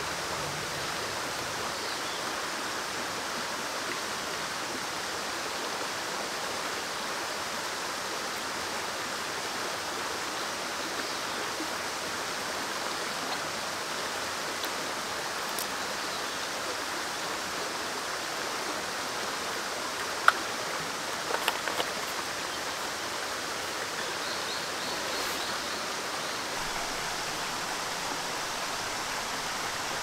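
Steady rushing of a nearby stream, with a few sharp clicks about two-thirds of the way through.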